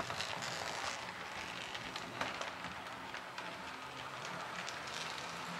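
H0-scale model SU46 diesel locomotive pulling one passenger coach along model track: a steady rolling hiss of its motor and wheels with a few faint clicks.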